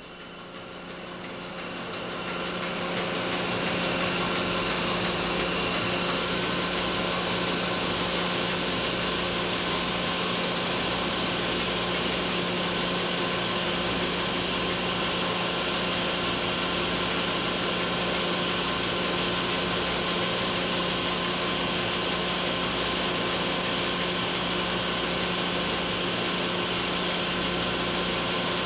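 Williams No. 215 reversible impact crusher, V-belt driven, coming up to speed over the first few seconds, then running steadily with a constant low hum and a thin high whine.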